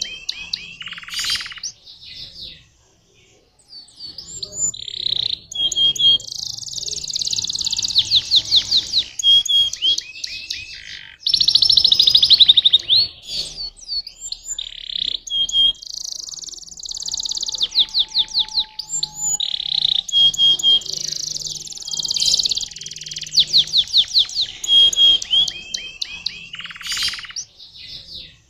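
Canary singing: long phrases of fast rolling trills and high chirps, broken by short pauses, with a brief quiet gap about three seconds in.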